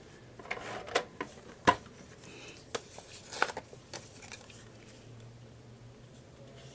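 Printed paper and cardstock pieces being handled: rustling with a few sharp taps as pieces are picked up and set down, the loudest a little under two seconds in, then quieter.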